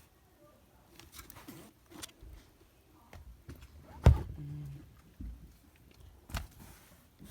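Scattered taps and knocks of a plastic dinosaur toy being handled. There is one loud thump about four seconds in, with a short low tone just after it.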